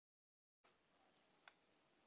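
Near silence: faint room tone, with one faint click about one and a half seconds in.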